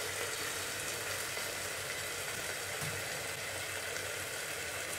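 Pieces of sea bass in a thick onion-tomato masala frying gently in a covered pan on low heat: a steady, even sizzle.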